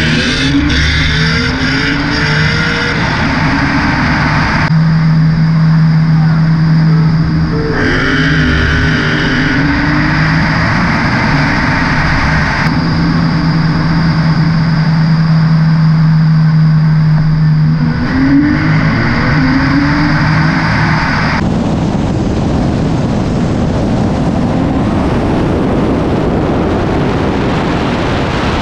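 Nissan GTR R35's twin-turbo V6 pulling hard in a roll race. Its pitch rises through the gears in several stretches, separated by abrupt changes to a steady engine drone. The last several seconds are a steady rush of wind and road noise at speed.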